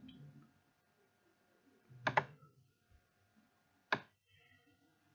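Computer mouse clicking: a quick double click about two seconds in and a single click near four seconds.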